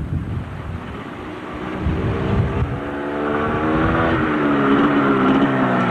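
Small motorcycle engine running as the bike rides toward the listener. Its note grows steadily louder from about halfway through, after low gusty rumble at the start.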